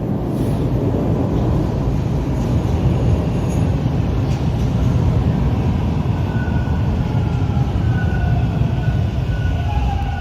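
TTC Line 2 subway train running on the track with a loud, steady rumble. Faint wheel squeal starts about six seconds in and gets stronger toward the end.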